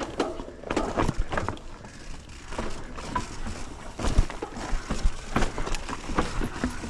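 Mountain bike rattling and knocking over rough, rocky trail, irregular sharp clacks with the loudest near four and five and a half seconds in.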